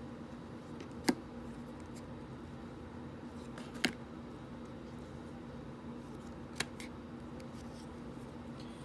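Three short, sharp clicks, about a second, four seconds and six and a half seconds in, over a steady low hum.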